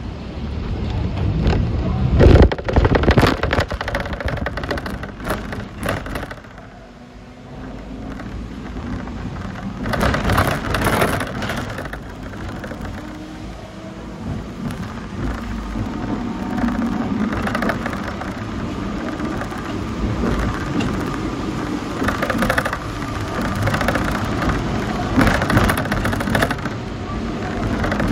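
Hong Kong double-decker tram running along the street, heard from on board: a low running noise with scattered clicks and knocks, dipping quieter about seven seconds in before picking up again.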